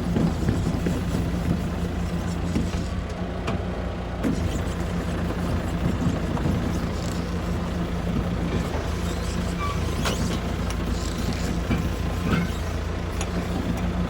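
Mitsubishi BD2J2 swamp bulldozer's diesel engine running steadily, with a few sharp metallic clanks.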